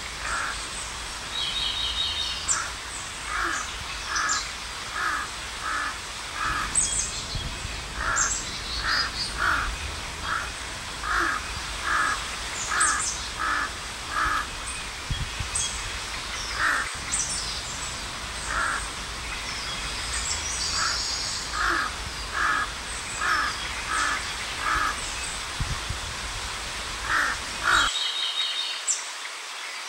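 A crow cawing in repeated runs of four to six caws, about two a second: agitated alarm calls at a cat close by. Small birds chirp in the background.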